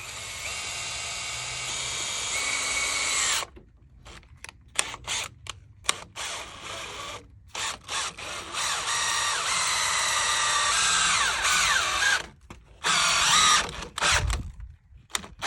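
Power drill driving 6-inch structural screws into doubled 4x4 studs: two long runs of a few seconds each, with a string of short trigger bursts between them and a brief run near the end. The motor's pitch sags as a screw draws tight.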